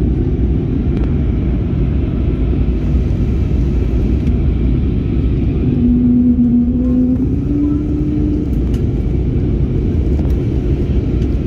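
Cabin noise of an Airbus A320-family jet airliner on descent: a steady low rumble of airflow and engines. About six seconds in, a humming tone rises over it and steps up in pitch before fading.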